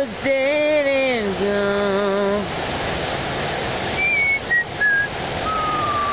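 A voice singing two drawn-out, gliding syllables, which fit the on-screen word "ducky". A few high whistled notes then step down in pitch, ending in one longer, slightly falling note, over a steady rushing noise.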